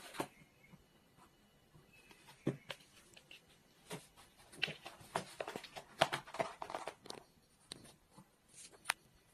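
Shredded paper rustling and crackling as a cat paws and noses through it, in irregular faint crackles and clicks that are busiest around the middle.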